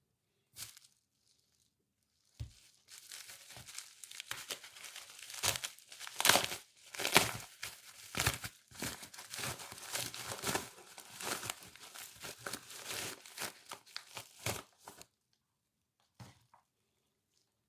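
Packaging being torn open and crinkled by hand: a dense run of crackling and rustling with sharper crackles, starting about two seconds in and stopping a few seconds before the end.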